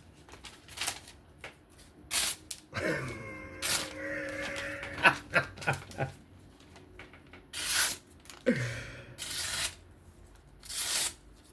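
Folding pocket knife blade slicing through paper, several short hissing cuts a second or so apart. A steady pitched hum sounds for about three seconds in the middle.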